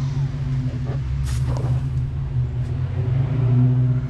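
A car engine idling steadily, with a short sharp click about a second in.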